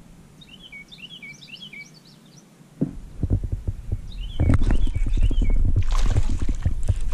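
A small bird twitters in a quick run of short chirps. About three seconds in, rapid low knocks start, and from about halfway the water splashes loudly as a hooked bass thrashes at the surface.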